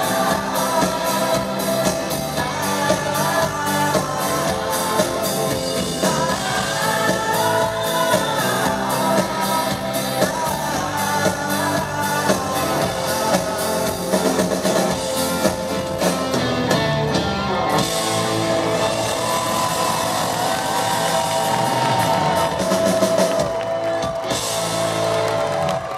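Live rock band playing a song: drum kit, electric guitars and a male lead singer, with sung lines over a steady full band.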